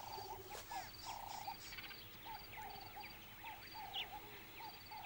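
Faint night chorus of frogs and insects: many short croaking calls overlapping one after another, with a high pulsed insect trill repeating about once a second.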